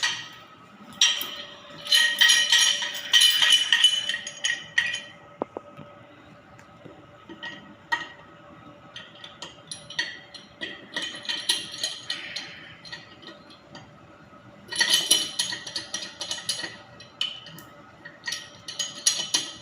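Metal hand tool clicking and clinking in four rapid bursts of a few seconds each, during work on a water heater's circulating pump.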